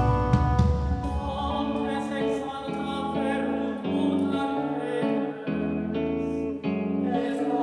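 Live pop-rock band playing an instrumental passage: electric guitar over bass and sustained chords, the notes changing about once a second.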